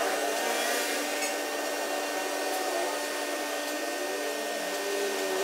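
Electric wall fan running with a steady whirr and a faint hum.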